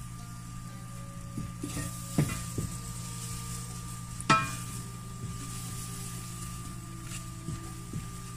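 A wooden spoon stirs butter and flour in a stainless steel saucepan, with a few sharp knocks against the pot, the loudest about four seconds in. Melting butter sizzles faintly over a steady low hum.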